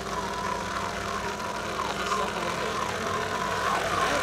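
Lobster boat's engine running under a steady hum while the hydraulic pot hauler draws the trawl line in over the davit block, with a rhythmic squeak about twice a second from the line and sheaves.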